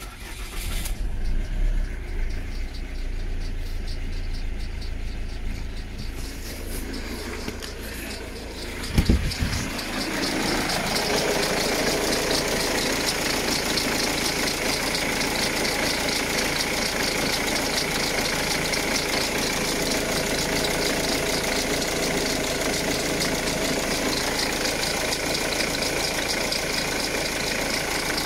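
Ford Mondeo Mk3 2.0 TDCi four-cylinder common-rail diesel engine starting and then idling steadily. It sounds low and muffled at first; about a third of the way in there is a sharp thump, after which the idle is heard in the open engine bay with a fast, even diesel clatter.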